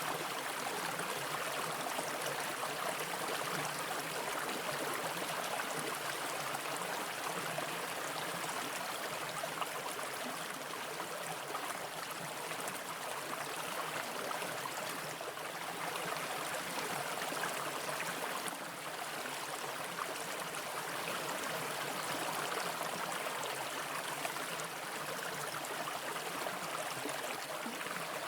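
Mountain brook running over rocks: a steady rush of flowing water.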